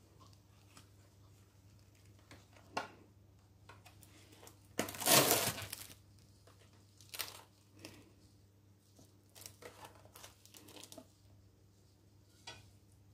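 Clear plastic packaging of a meat tray crinkling and tearing as it is unwrapped. It is loudest for about a second some five seconds in, with scattered rustles and small knocks of handling around it.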